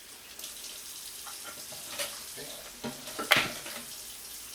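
Food sizzling gently in a hot frying pan as sauce is added. A few short knocks of a utensil or bottle against the pan, the sharpest a little over three seconds in.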